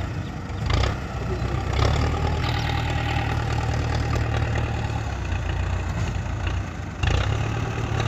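Belarus tractor's diesel engine running steadily as its front loader pushes soil, then suddenly louder about seven seconds in.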